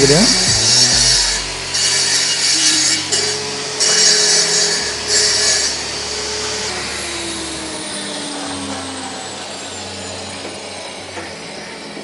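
Power cutting machine slicing through a concrete interlocking brick in several short passes, each a loud hiss. After about six seconds it is released and its motor winds down with a falling whine.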